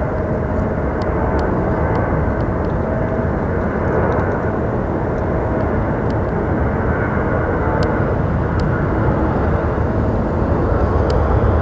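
Marine One presidential helicopter coming in to land and settling onto the ground, its rotor and turbines running with a steady, loud noise.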